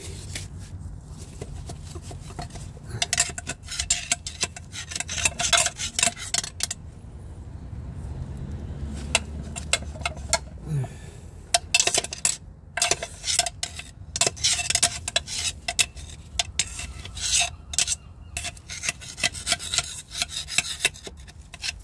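Rag and a thin tool wiping and scraping grease and grime out of a BMW 120i's gearbox bellhousing. The sound is scratchy rubbing in irregular bursts, with small clicks against the metal casing.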